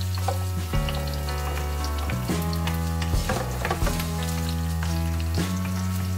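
Garlic and onion sizzling as they sauté in a wok, with a wooden spatula stirring and knocking against the pan now and then, under background music with a steady bass line.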